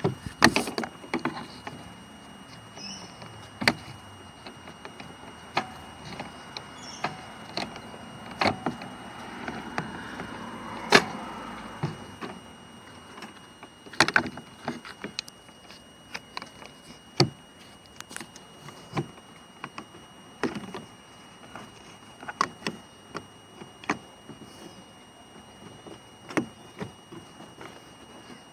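Irregular clicks and knocks of plastic car door trim being handled and pressed back into place on the door.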